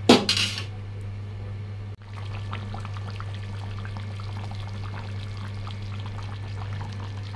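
Chicken curry bubbling and spitting at a boil in a steel kadai, a steady fine crackle over a constant low hum. A brief loud scrape comes right at the start, before the bubbling settles in.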